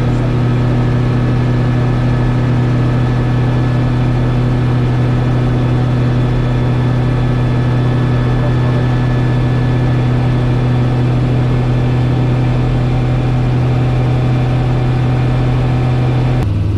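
Rotax 915 turbocharged four-cylinder engine and pusher propeller of a Niki Kallithea gyrocopter running at steady power in flight, a loud, even drone heard inside the cockpit. Near the end the drone drops suddenly to a lower pitch.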